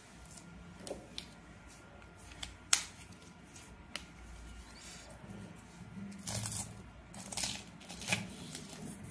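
Paper handling: a worksheet being shifted and rustling on a table, with a few light clicks and taps, the sharpest about three seconds in. Faint throughout.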